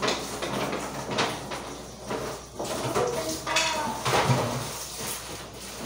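Kitchen clatter: dishes, cookware and utensils knocking and clinking now and then.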